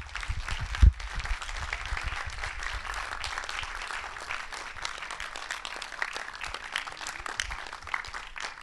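Audience applauding: a dense patter of many hands clapping, with a couple of low thumps in the first second.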